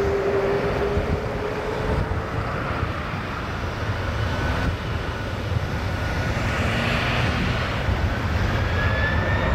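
Boeing 767 twin jet engines running at low power during a slow roll onto the runway: a steady rumble with an engine whine that rises slowly in pitch, and a higher whine climbing near the end.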